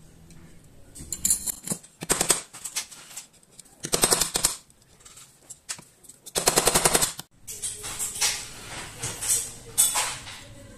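Small hammer tapping on a Jericho 941 FB pistol frame to drive out a pin, in several quick bursts of rapid metallic taps with lighter taps after.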